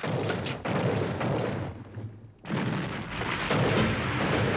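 Animated battle sound effects: a loud rushing blast that fades away about two seconds in, then a sudden, steady heavy rumble of tank gunfire and explosions.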